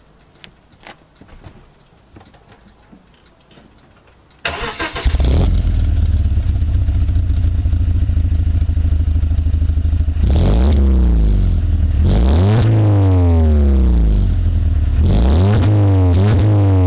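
BMW E46 318i four-cylinder petrol engine started about four and a half seconds in, settling into a steady idle, then revved several times, each rev rising and falling in pitch. Faint clicks come before the start.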